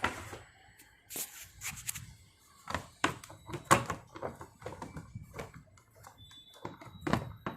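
Plastic casing of a Preethi induction stove being fitted and pressed shut: a series of irregular sharp clicks and knocks, the loudest a little before halfway.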